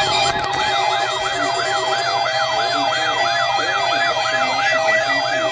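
Electronic siren yelping, its pitch sweeping up and down about three times a second over steady tones.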